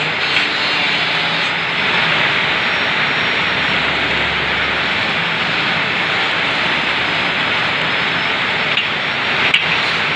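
Electric arc welding burning a hole through iron plate: a steady, even rush of noise without a break, with one brief click near the end.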